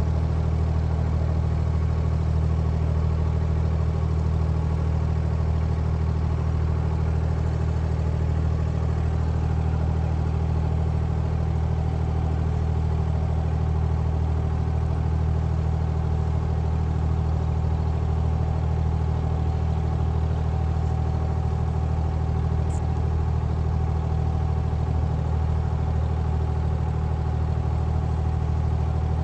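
Inboard diesel engine of a wooden abra water taxi running steadily under way, a loud, even low hum with a few steady higher tones over it.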